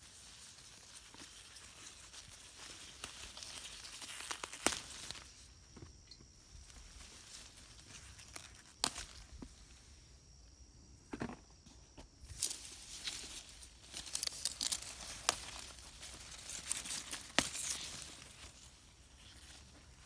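Leafy garden plants being handled: irregular rustling and crinkling of foliage, with a few sharp snaps of stems breaking.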